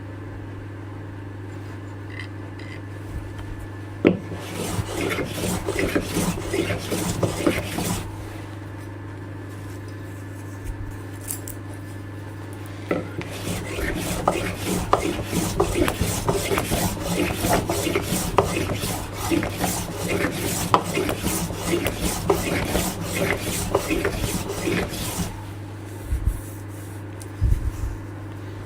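Steel low-angle block plane shaving wood with a fine cut: a run of quick strokes for a few seconds, then, after a pause with a few small knocks, a longer run of strokes lasting about twelve seconds. A steady low hum lies underneath throughout.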